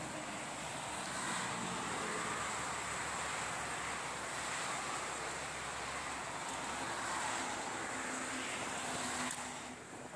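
Steady outdoor background noise, a continuous hiss with a low rumble like distant traffic or wind. It drops away after a sharp click near the end.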